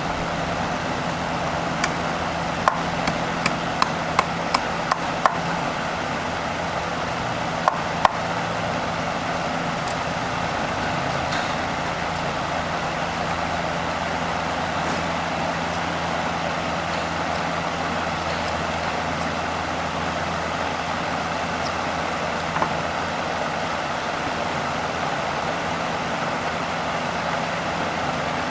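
Steady machine hum with a run of about eight sharp knocks a few seconds in, two more near the 8-second mark and a single one later.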